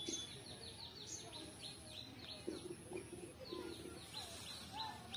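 A bird calling a fast series of short, high, falling chirps, about five a second, in two runs with a pause of about a second and a half between them.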